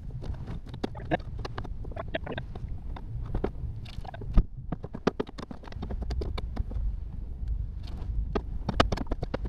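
Knife slicing squid into rings on a cutting board: a run of quick, irregular taps and cuts, with one louder knock about four seconds in, over a low wind rumble on the microphone.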